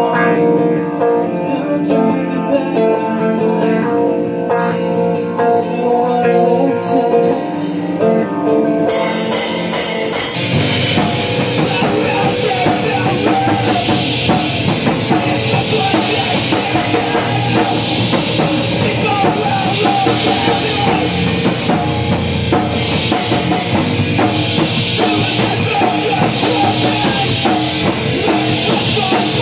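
Live rock band playing loud: an electric guitar plays alone for the first nine seconds or so, then drums with cymbals and bass guitar come in and the full band plays.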